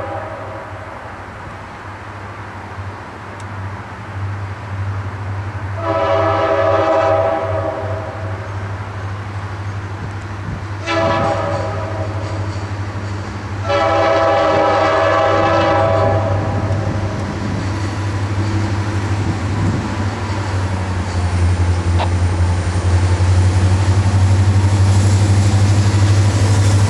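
CSX GP40-2 diesel locomotive sounding its multi-note air horn as it approaches: a long blast about six seconds in, a short one about five seconds later, then another long blast, which with the blast just before makes the long-long-short-long grade-crossing pattern; the filmer takes the horn for a K5. Its engine runs underneath, growing louder as the locomotive throttles up and draws near over the last several seconds.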